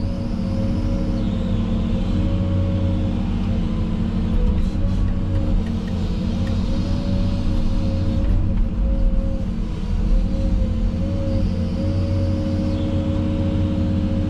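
Tractor engine running steadily at working revs, a low rumble with a steady whine over it.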